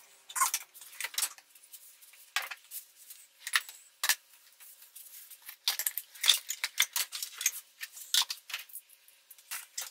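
Metal hand tools (wrenches, pliers) clinking and clattering against each other as they are handled and shifted in a steel tool chest drawer: a string of irregular sharp clinks, busiest about halfway through.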